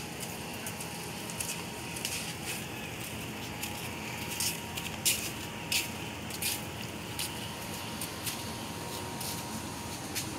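Footsteps: light, irregular steps on concrete, about one or two a second, over a faint steady hum.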